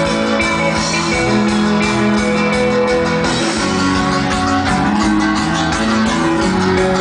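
Live rock band playing: guitars and bass guitar over a drum kit, heard through the festival PA.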